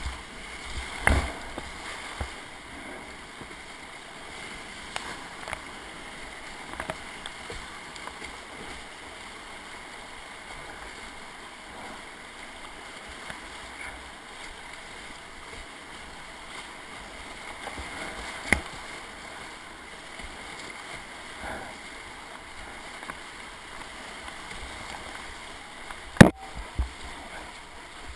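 Whitewater rushing and splashing around a kayak running a rapid, with paddle strokes in the water. A few sharp knocks stand out, the loudest near the end.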